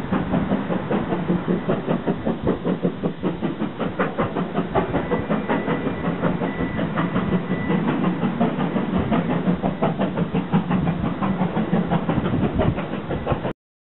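Steam-hauled train of passenger coaches running along the line, a steady rumble with rapid clatter of wheels over the rails. The sound cuts off suddenly near the end.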